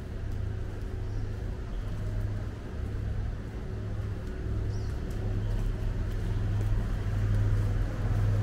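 Low, steady rumble of city traffic, growing somewhat louder in the second half.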